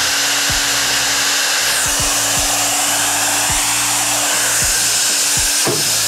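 Manli 1800 W salon hair dryer running: a loud, even rush of blown air with a steady low motor hum underneath.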